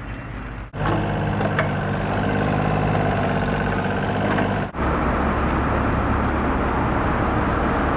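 Heavy-equipment diesel engines running, in abrupt edited cuts. About a second in, a Takeuchi TB125 mini excavator's engine runs with a steady hum. From about five seconds in, a deeper, louder steady diesel drone comes from a Volvo A40 articulated dump truck with its dump body raised.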